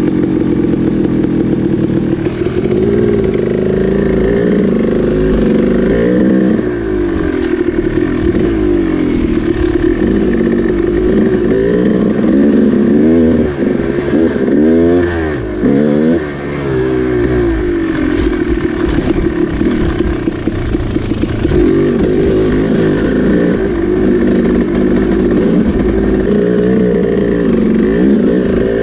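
KTM dirt bike engine running under way, its revs rising and falling again and again as the throttle is opened and closed, with a quicker run of up-and-down revving in the middle.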